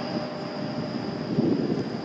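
Grand Central Class 180 'Adelante' diesel multiple unit approaching, its underfloor diesel engines and running gear giving an uneven low rumble that swells about one and a half seconds in. A thin steady high whine sits over it.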